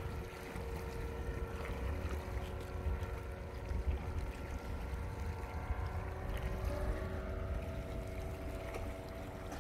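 Wind rumbling on the microphone at the seashore, with a faint steady hum underneath.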